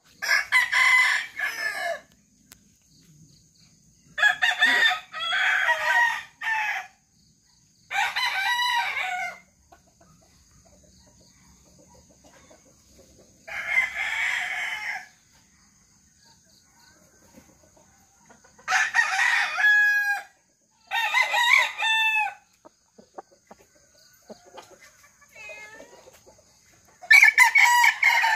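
Roosters crowing again and again: about seven loud crows, each one to two seconds long, a few seconds apart.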